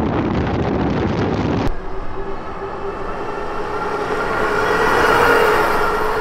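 Wind rushing over a camera mounted low on a moving fat-tire electric bike. After a sudden cut, the steady whine of the e-bike's electric motor and its tyres humming on the road grow louder as it approaches, peaking about five seconds in.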